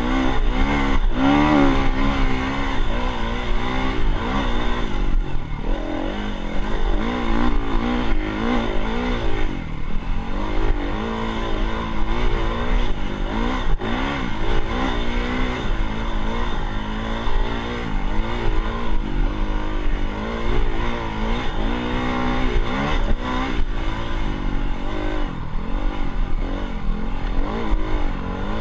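Dirt bike engine being ridden, its revs rising and falling continually as the throttle is worked.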